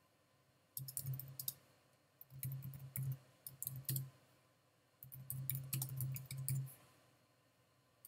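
Typing on a computer keyboard: rapid keystroke clicks in three short bursts, with brief pauses between them.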